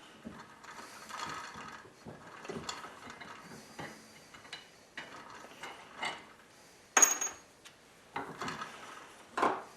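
Metal clicks and clinks from a drill chuck, its repair ring and a small brass protector piece being set in a bench vise, and the vise being tightened to press-fit the ring onto the chuck sleeve. The loudest is a sharp metallic clink with a brief ring about seven seconds in, and another knock comes near the end.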